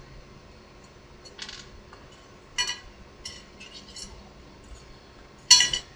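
Small hard parts being handled and set down on a workbench: a handful of light clinks and clicks, the sharpest near the end.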